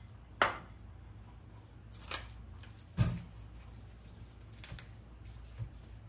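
Kitchen prep handling on a counter and wooden cutting board. A sharp clink comes about half a second in, then light rustling, then a heavier knock with a dull thud about three seconds in as a mesh bag of onions is set down on the board. A faint tap follows near the end.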